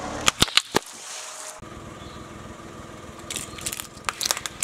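Car tyre rolling over and crushing plastic objects: a few sharp cracks in the first second, then a run of plastic cracks and crunches near the end as disposable plastic lighters break under the tyre.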